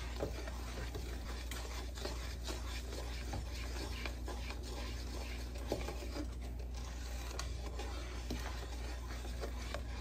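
Spoon stirring sugar into a pot of cooking cherry jam, scraping steadily around the pan with a few light knocks, over a steady low hum.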